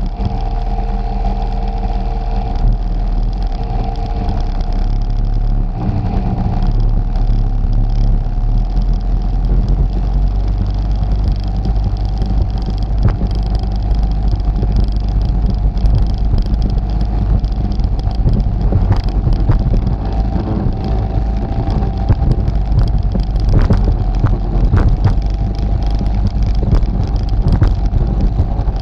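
ATV engine running at a steady pitch while riding. In the second half, short splashes and knocks come through as it crosses mud and standing water.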